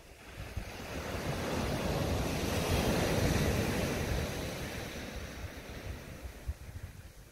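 Small sea waves breaking and washing up the beach. The surf swells to a peak about three seconds in, then draws back and fades.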